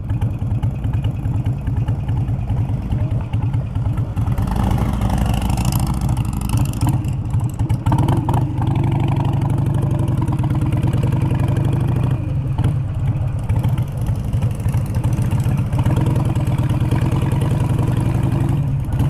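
Harley-Davidson V-twin motorcycle engine running under way as the bike is ridden, a steady low rumble that shifts in pitch with the throttle.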